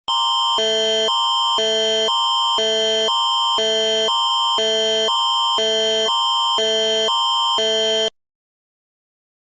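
Emergency alert attention signal: a loud electronic alarm alternating between a higher and a lower chord of steady tones twice a second over a constant high tone, for about eight seconds before it cuts off suddenly.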